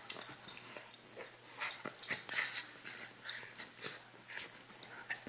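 A Rottweiler puppy and a small dog play-fighting: a run of short, irregular play noises from the dogs, busiest about two seconds in.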